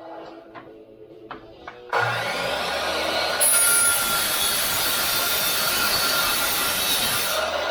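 Miter saw with a Diablo 8-inch steel-cutting blade switching on about two seconds in, then biting into stainless steel about a second later and cutting steadily through it with a loud, harsh grinding. A few light clicks come before the motor starts.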